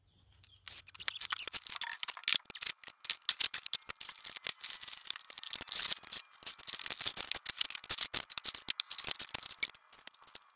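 Continuous clattering and clinking of small metal parts and hardware being handled and set down on a wooden workbench, with a short pause about six seconds in.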